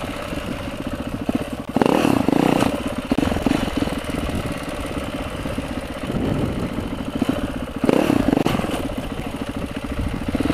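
KTM dual-sport motorcycle engine running under the rider on a dirt trail, a steady rapid firing pulse. The throttle opens into two louder surges of revs, about two seconds in and again about eight seconds in.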